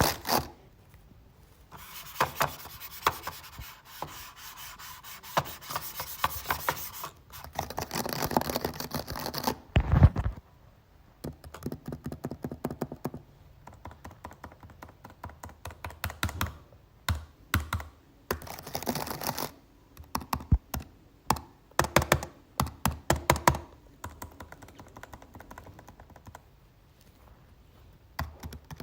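Keys of a red computer keyboard being typed in bursts: quick runs of clicks, separated by pauses and scattered single taps, with one heavy thump about ten seconds in.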